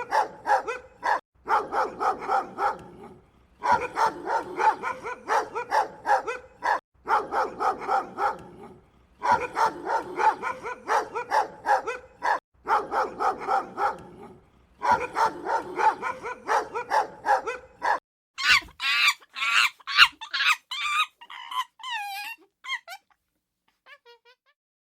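A dog barking rapidly in repeated bouts, each a few seconds long with short breaks between. Near the end the barking stops and a different, higher-pitched series of wavering animal calls follows and fades out.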